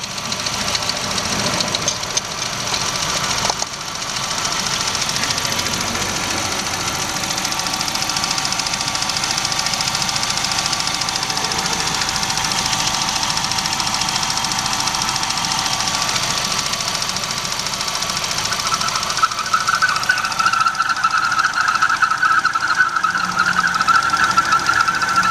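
Classic Mini's A-series engine running steadily. About three quarters of the way through, a high squeal sets in and keeps on over the engine. The shop puts this squeal down to crankcase pressure being pulled too low by the intake-manifold vacuum when the small vent hole in the oil filler cap is clogging.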